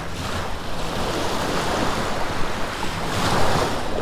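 Small surf waves washing and lapping at the shoreline, with wind buffeting the microphone. A wave washes in a little louder about three seconds in.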